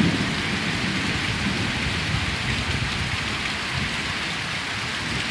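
Heavy tropical downpour, a steady, even hiss of rain pouring onto the ground and plants. A low rumble of thunder dies away as it begins.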